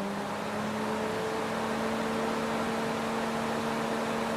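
Fiat Tipo electric radiator cooling fan running at full speed on 12 volts from a battery: a steady motor hum over a strong rush of air. Freshly cleaned and lubricated with its brushes serviced, it makes no plastic rattle, just a lot of wind.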